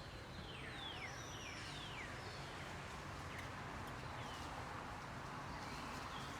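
Several short animal calls, each sliding down in pitch like a quick whistle, about five in the first two seconds and a few fainter ones later, over a steady outdoor background hiss.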